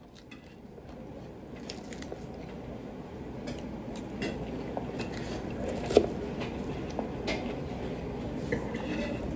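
Close-up eating sounds: a person chewing crisp salad, with scattered clicks of a fork against a glass bowl and a sharper knock about six seconds in. Restaurant background noise underneath grows louder.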